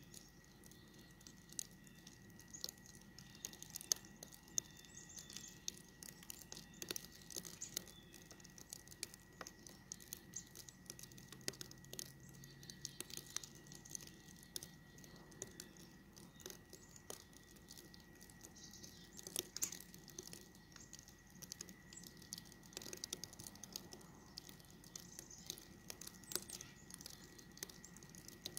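Falling snow pattering faintly: many small, irregular ticks.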